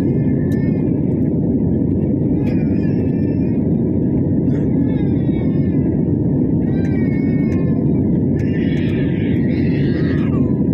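Jet airliner cabin noise in flight: the steady, even rumble of the turbofan engines and rushing air heard from a window seat, with faint passenger voices in the background.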